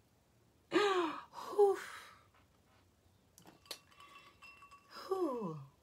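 A woman's breathy "whew" falling in pitch, a few faint clicks and clinks, then a long sigh gliding down in pitch near the end.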